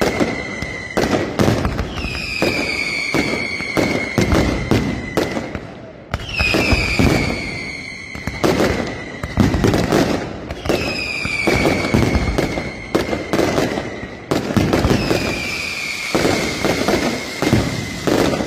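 Mascletà firework display: dense bangs and crackling from bursting shells. About every four seconds a whistling firework sounds, a high whistle that falls slightly in pitch over a second or two.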